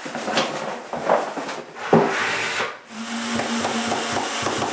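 Wooden knocking and scraping as an old bathroom cabinet is worked loose, followed from about three seconds in by a steady hum with a high hiss, like a small power tool running.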